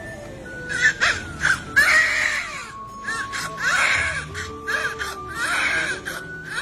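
A baby crying in a series of short wailing cries over background music with held notes and a slow low beat.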